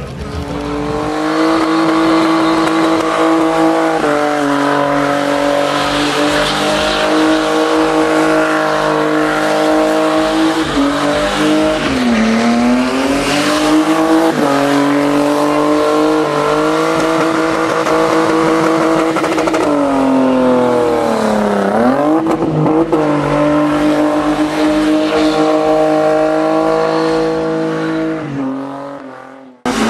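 BMW E30 engine held at high, steady revs as the car spins donuts, rear tyres spinning and squealing in smoke. The revs drop and climb back about twelve seconds in and again about twenty-one seconds in, and the sound fades out just before the end.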